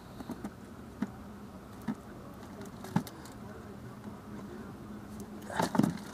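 Handling noises as a herring is unhooked over a plastic bucket of fish: a few light clicks and taps, then a louder cluster of knocks near the end. A low steady hum runs underneath.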